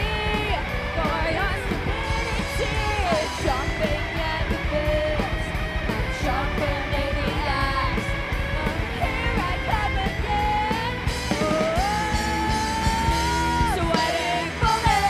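Live rock band playing at full volume: distorted electric guitars, bass and drums, with a high lead line that bends in pitch and holds one long note near the end.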